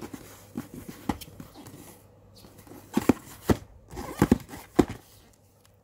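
Hands handling a taped cardboard shipping box: a string of sharp knocks and taps on the cardboard, a few scattered at first, then a cluster of louder ones from about three seconds in.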